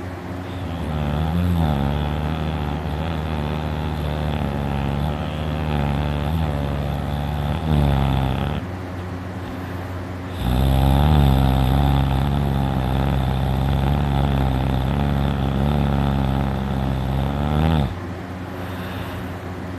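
A person snoring very loudly: two long, steady, pitched snores of about eight seconds each with a short break between them. The sleeper puts the snoring down to his uvula vibrating.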